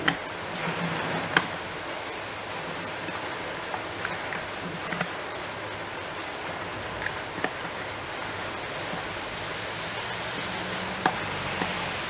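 A steady hiss with a few sharp light clicks and taps, from a cloth rubbing over the hard plastic lid and head of a wet/dry shop vacuum while it is cleaned by hand.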